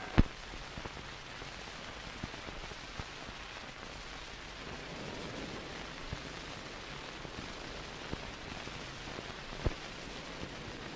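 Steady hiss of an old film soundtrack with faint crackle, broken by a sharp pop just after the start and a smaller one near the end.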